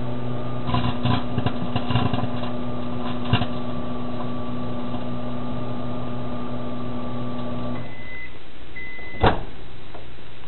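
Microwave oven running with a steady hum while a CD inside crackles and snaps for about three seconds shortly after the start, as its metal layer sparks. The oven stops just before the end, beeps twice at the end of its cycle, then gives a single sharp click.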